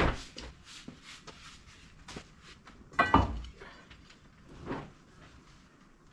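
Scattered knocks and handling noises, with a loud clank about three seconds in that rings briefly, and a smaller knock near the end.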